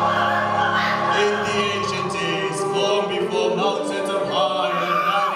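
Choral, operatic-style music with sustained sung voices. A low held note underneath stops about two seconds in.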